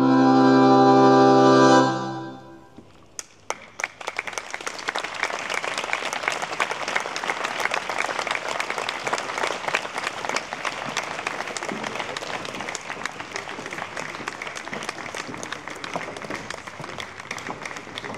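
A sustained chord of opening music fades out about two seconds in. Then an audience starts applauding: a few scattered claps at first, then steady clapping from the crowd.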